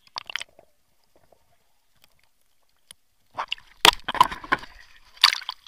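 Water splashing and knocking against a waterproof action-camera housing as it is lifted out of the water with the landing net. After a short burst, it is nearly silent underwater for about three seconds, then several loud splashes and knocks come in quick succession.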